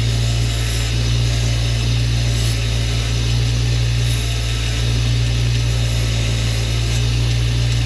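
An electric power tool running steadily at constant speed while cleaning up a part: a low, even motor hum with a rough hiss over it.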